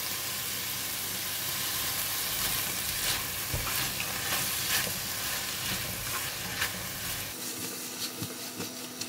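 Mustard green stems and fishballs sizzling in oil in a ceramic-coated wok while being stirred with a silicone spatula, with scattered light scraping and tapping clicks. The sizzle eases slightly near the end.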